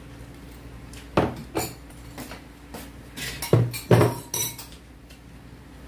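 Spoons knocking against ceramic bowls and dishes clattering during a meal: a handful of sharp clinks and knocks, loudest about three and a half to four seconds in.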